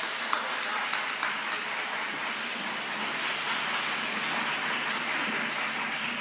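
Audience applauding, a few separate claps at first, then dense steady clapping.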